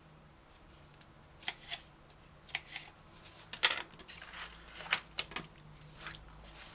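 Kitchen knife cutting tomatoes on a plastic cutting board, with hands pushing the tomato pieces together: a string of short clicks and scrapes starting about a second and a half in, loudest about the middle.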